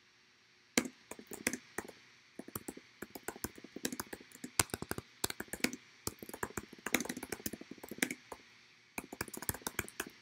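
Typing on a computer keyboard: quick runs of sharp keystroke clicks, starting about a second in, with short pauses about two seconds in and again near the end.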